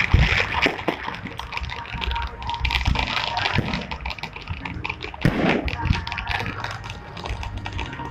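Aerial fireworks crackling with many quick sharp pops, with a louder burst about five seconds in, over a background of crowd voices.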